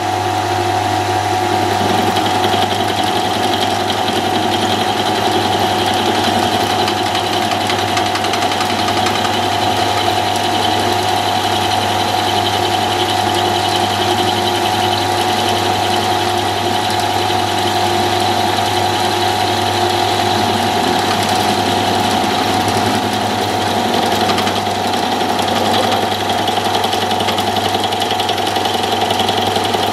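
Milling machine running a freshly reground milling cutter through aluminium, taking a 1 mm cut: a steady machine hum and whine with the cutter chewing metal throughout.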